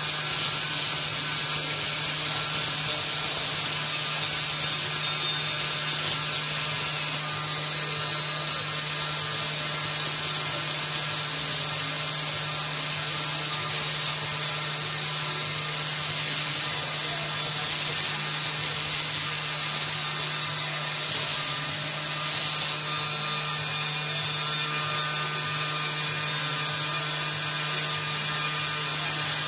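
High-speed spindle of a vertical CNC glass drilling, milling and grinding machine running with a steady high-pitched whine, with the hiss of water coolant spraying as it machines a glass sheet.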